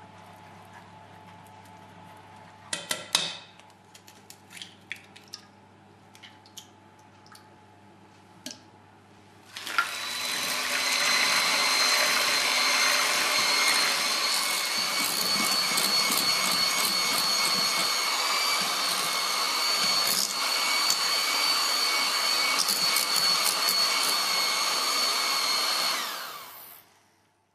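Electric hand mixer starting up about ten seconds in and running steadily with a fixed whine, whisking egg whites to a foam in a plastic bowl, then switching off shortly before the end. Before it, a few light taps and scrapes of a wooden spoon stirring sauce in a saucepan.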